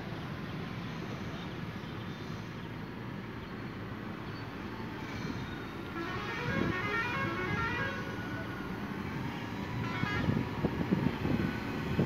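Diesel engine of a SANY motor grader running under load as it pushes crushed stone with its blade, getting louder as the grader comes closer. A horn-like tooting sounds about six seconds in, over traffic noise.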